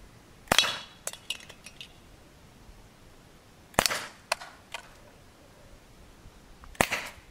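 Umarex Beretta 92 FS CO2 air pistol firing three shots about three seconds apart, each a sharp crack. After the first two come short metallic clinks and rattles as the cans and bottles on the target pallet are hit and knocked over.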